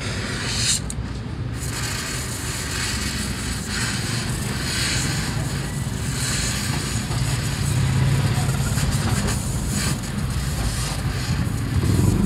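Gas welding torch flame hissing steadily as it welds a steel scooter frame tube, flaring up sharply at the start, with a steady low rumble underneath.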